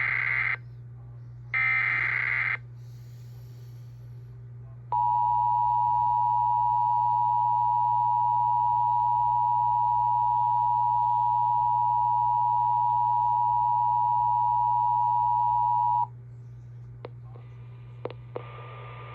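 Emergency Alert System tones: two short buzzy SAME header data bursts a second apart, then after a pause the EAS two-tone attention signal (853 and 960 Hz together), held steady for about eleven seconds before it cuts off. A low steady hum runs underneath. These tones announce a severe thunderstorm warning.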